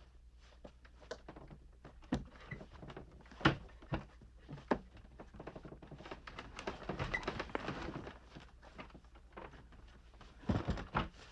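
Irregular knocks, clicks and clatter of a telephone being handled and taken apart with tools, with a scraping, rustling stretch in the middle and a cluster of knocks near the end.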